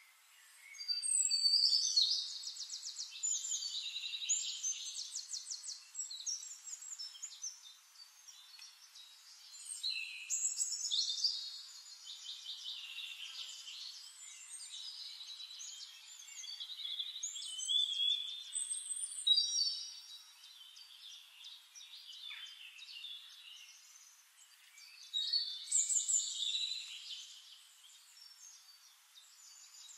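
Songbirds singing: bursts of fast, high-pitched trills and chirps every few seconds over a faint hiss.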